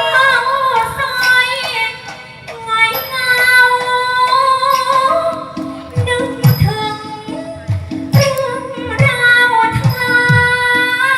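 A woman singing a slow Thai song with wavering, ornamented held notes over backing music; low drum beats come in about six seconds in.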